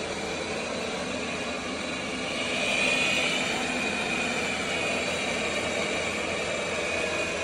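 Roborock S8 Pro Ultra robot vacuum and mop running: a steady motor whir with a high whine, swelling slightly about three seconds in.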